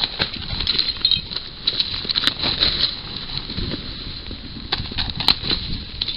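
Scattered rustling, soft knocks and wing flaps of scavenging birds at a wild boar carcass.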